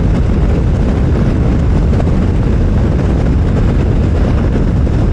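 Benelli TRK 702 motorcycle cruising at motorway speed: a steady, loud engine drone mixed with wind and road rush.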